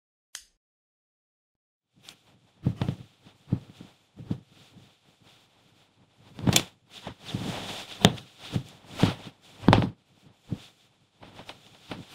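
Shoes on a wooden floor: irregular thuds and knocks, with a spell of cloth rustling in the middle. A single click comes first, then a short silence before the thuds begin.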